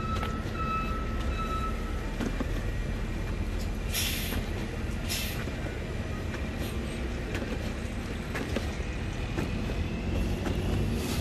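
Street traffic: a steady low rumble of passing vehicles, with faint high squeals in the first couple of seconds and two short hisses about four and five seconds in.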